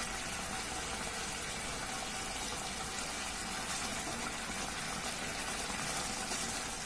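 Curry gravy bubbling steadily at a rolling simmer in a metal kadai, a continuous fine crackling bubble.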